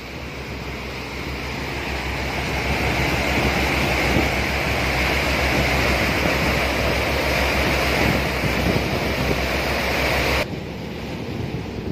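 Sea water churning and rushing in a boat's wake, with wind buffeting the microphone and a low rumble underneath. It grows louder over the first few seconds and drops abruptly to a quieter hiss near the end.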